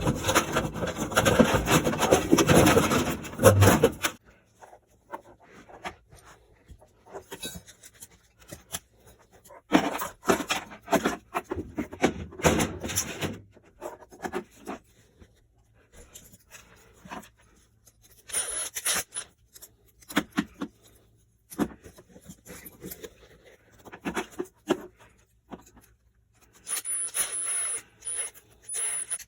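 Intermittent rubbing and scraping of hands working with tools and parts. It is dense and loud for the first few seconds, then comes in short scattered bursts with quiet gaps.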